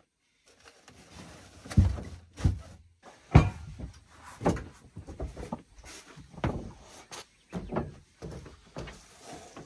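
A string of separate knocks and thumps, roughly one a second: gear being shifted and a person clambering about in a pickup truck's bed under a camper shell.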